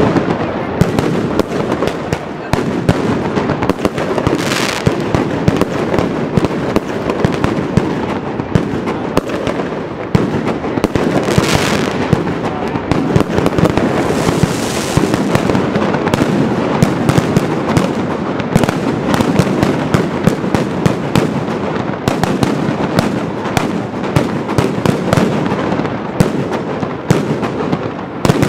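Mascletà firecracker barrage: salute shells and firecrackers going off in a dense, unbroken string of rapid bangs.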